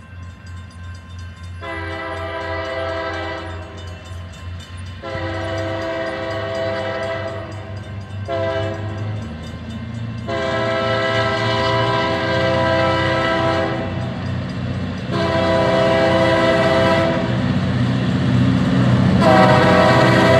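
Diesel locomotive's multi-tone air horn sounding long, long, short, long (the grade-crossing signal), then two more blasts, over the rumble of the engine, which grows louder as the locomotive approaches.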